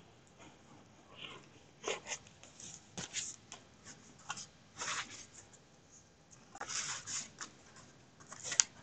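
Cardstock panels being handled and pressed down by hand on a cutting mat: scattered short rustles, scrapes and taps.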